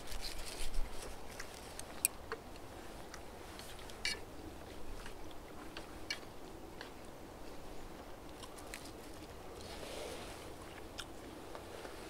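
A person chewing and crunching mouthfuls of spicy pork and vegetable wrap close to the microphone, with scattered small crunches and mouth clicks.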